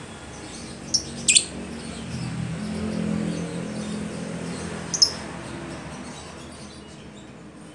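Lovebird giving short, shrill chirps, two close together about a second in and one more near five seconds in, calling to be fed. A low hum swells and fades beneath them.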